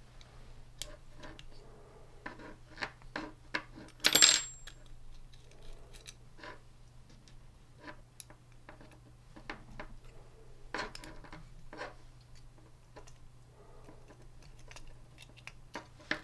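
Small scattered clicks and handling noises of plastic connectors and a circuit board being worked off a 3D-printer print head with a thin metal tool, with one sharp metallic clink about four seconds in.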